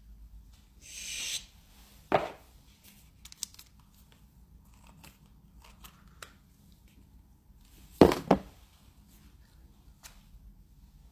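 Handling of a cardboard cosmetics box and a plastic serum spray bottle: a short scraping slide about a second in, a sharp knock just after two seconds, a few light clicks, and a loud double knock about eight seconds in.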